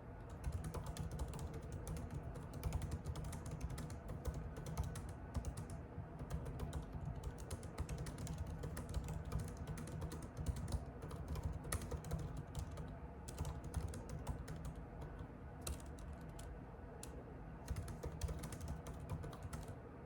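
Typing on a computer keyboard: a rapid, continuous run of key clicks, broken by short pauses and thinning to scattered keystrokes near the end.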